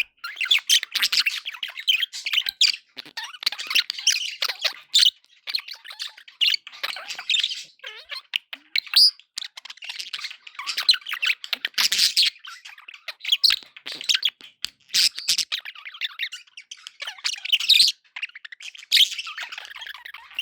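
Several budgerigars (budgies) chirping, warbling and squawking, with short quick calls overlapping in a continuous chatter and brief gaps.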